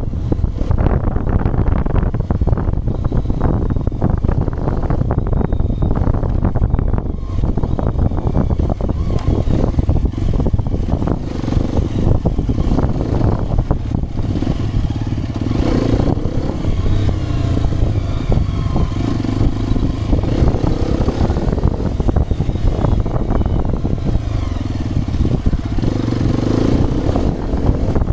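Hero Xpulse 210 motorcycle's single-cylinder engine running while being ridden, its note rising and falling as the throttle changes.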